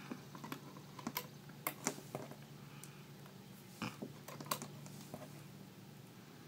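Scattered light clicks and taps of hands stretching rubber bands onto the pegs of a plastic band loom, irregular and a few to the second, over a faint steady low hum.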